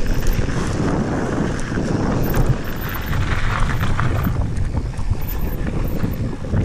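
Wind buffeting an action camera's microphone while a Santa Cruz Bronson mountain bike rolls down a gravel trail, with tyres crunching over small stones and scattered clicks and rattles from the bike.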